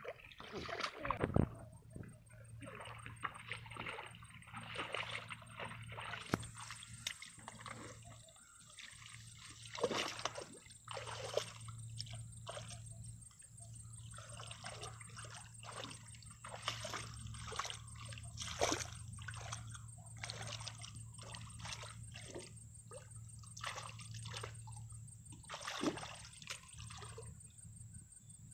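Hands groping and splashing through shallow muddy water while feeling for fish in the mud, with many short, irregular splashes and sloshes.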